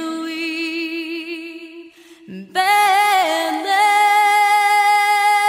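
A woman singing slow, long-held notes with vibrato, unaccompanied. About two seconds in she breaks off and comes back on a higher note.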